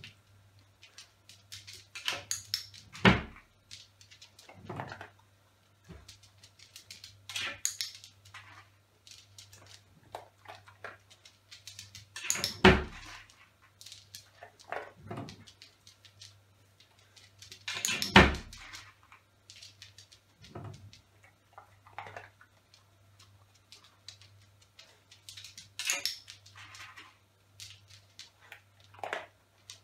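Irregular knocks and clicks of a dog pawing at an open kitchen drawer during clicker training, mixed with sharp clicks from the handheld training clicker. Three louder thumps stand out, about 3, 13 and 18 seconds in.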